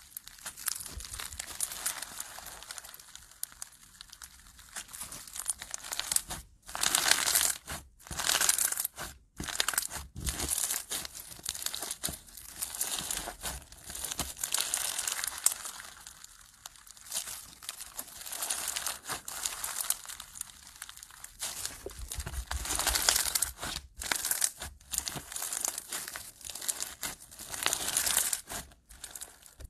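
Pink slime packed with foam beads being squeezed and pressed between the fingers, its beads crackling and crinkling in repeated bursts with short pauses between squeezes.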